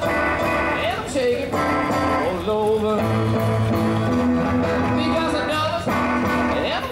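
Live rock'n'roll band playing, with guitar to the fore.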